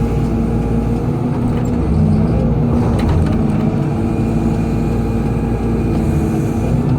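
Excavator's diesel engine running steadily while working, with a few short knocks about three seconds in.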